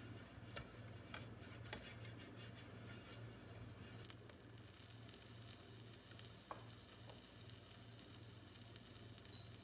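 Silicone pastry brush stroking oil over a hot nonstick frying pan, with light scratchy strokes. About four seconds in, a faint steady sizzle starts as the oil heats and a sandwich roll goes into the pan. A low hum runs underneath.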